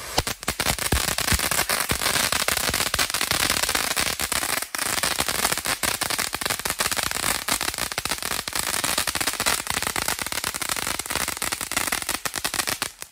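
TNT Retro Finale Fountain, a ground fountain firework, burning with a dense, continuous crackle over the rush of its spark jet, with a brief lull about four and a half seconds in. It cuts off suddenly just before the end.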